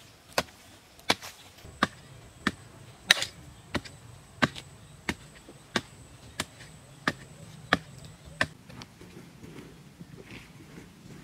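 Hoe blade chopping into hard, stony ground in a steady rhythm, about one and a half strikes a second, a dozen or so sharp blows that stop shortly before the end. Then only faint soft scraping of loose soil.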